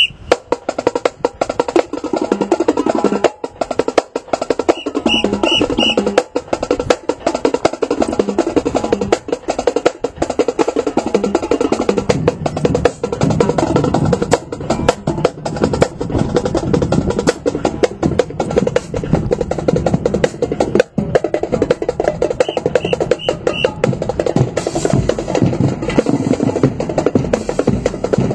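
Marching snare drums playing a fast, steady drum cadence, with dense rapid strokes throughout.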